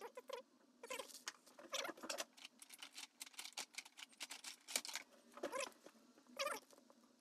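Clear plastic zip bags crinkling and rustling in irregular bursts as hands handle coiled charging cables inside them.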